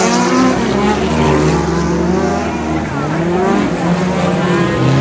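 Several dirt-track race cars' engines running and revving together, their pitches rising and falling as they race around the track.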